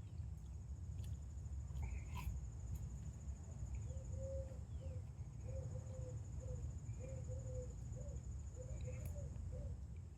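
Insects trilling steadily and high in the background over a constant low rumble of outdoor noise. From about four seconds in there is a run of short, low repeated calls.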